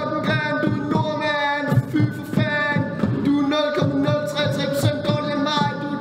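Beatboxing into a handheld microphone: sharp mouth-made drum strikes in a steady beat, with a long held sung or hummed tone running over them.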